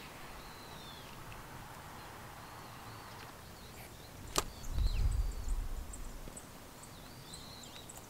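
Hot water trickling from a kettle spout onto a drip-bag coffee filter in a metal mug, faint, with birds chirping now and then. About four seconds in there is a sharp click, followed by a brief low rumble.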